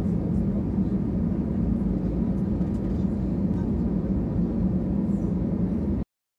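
Steady low rumble inside an Airbus A320 cabin on the ground: the jet engines idling and the cabin air running. The sound cuts off abruptly about six seconds in.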